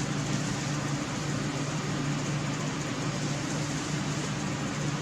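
Steady background machine hum with a hiss, even and unchanging throughout.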